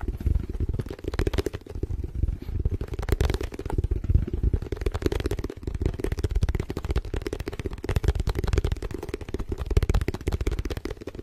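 Very fast, frantic tapping and rubbing of an object held against a microphone: a dense, uneven run of rapid taps and scrapes with a heavy low rumble from the close handling.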